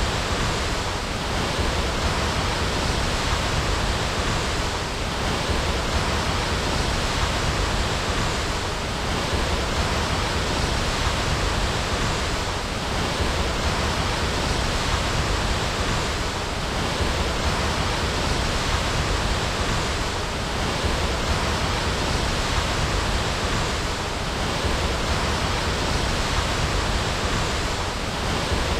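Waterfall: a steady, full rush of falling water with no distinct splashes, dipping slightly about every four seconds.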